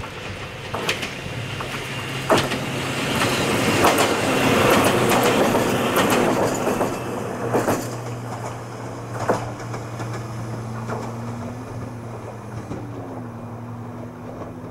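Ohmi Railway 300-series electric train passing, its wheels clicking over rail joints. It is loudest about four to six seconds in, then fades as it moves off.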